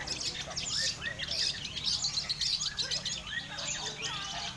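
Many long-tailed shrikes (cendet) singing and chirping at once, a dense overlapping chorus of short high notes and quick slurred calls, as heard at a bird-song contest.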